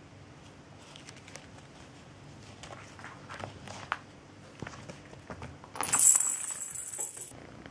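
A kitten playing with plastic toy balls on a carpet: scattered soft taps and knocks, then, just before six seconds in, a loud rattle lasting about a second and a half as it swats a small plastic ball.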